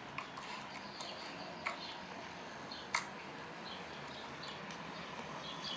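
Faint handling noise of small plastic toy train parts, with a few sharp clicks, the loudest about three seconds in.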